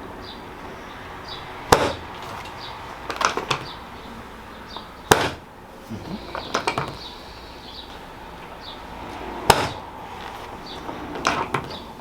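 Sharp clicks and knocks while the leg and knee are worked during a chiropractic mobilisation. Three loud, single clicks come about three and a half to four and a half seconds apart, each after a short run of softer clicking and rustling.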